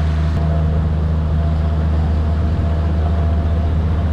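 Motorboat engine running steadily at cruising speed: a loud, even, low drone.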